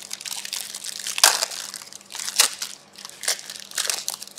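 Trading-card pack wrappers crinkling and being crumpled by hand, in a run of rustling bursts with the loudest crackles about a second in and near halfway.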